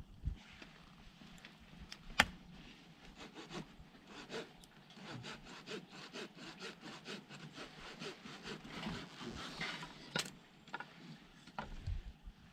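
A hand saw cutting wood, likely firewood for the campfire, in quick, even strokes of about two to three a second. A sharp knock about two seconds in and another near ten seconds.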